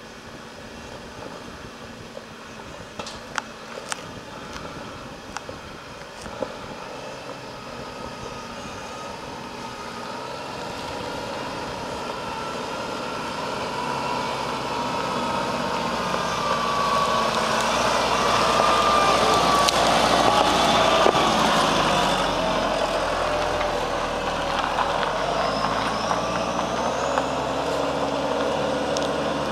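Toyota Land Cruiser Prado 4WD crawling up a rocky, rutted dirt track. Its engine and tyres grow steadily louder as it approaches, are loudest as it passes close by about twenty seconds in, then ease off a little as it moves away. A few sharp clicks come a few seconds in.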